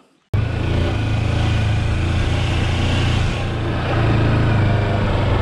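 Kawasaki Versys-X 300's parallel-twin engine running steadily as the motorcycle climbs a dirt trail, over a rushing noise. It starts suddenly just after a brief silence.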